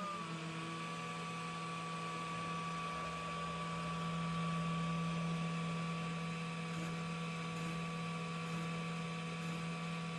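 Makera Carvera desktop CNC mill's belt-driven 200-watt brushless spindle running at steady speed with a 0.8 mm corn bit while milling the holes in a PCB. It gives a steady high whine that settles just after the start, over a steady lower hum.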